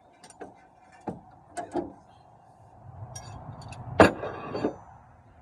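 Hand tools knocking and clanking on metal in a truck's engine bay as the belt is worked off the tensioner: scattered knocks and clicks, the loudest a sharp clank about four seconds in.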